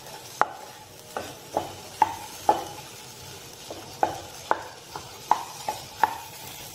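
Metal spatula knocking and scraping against a non-stick frying pan as boiled potato pieces are lightly mashed and stirred, the pan ringing briefly at each knock, about two knocks a second with a short pause about halfway through. Faint sizzling of the potatoes frying in ghee underneath.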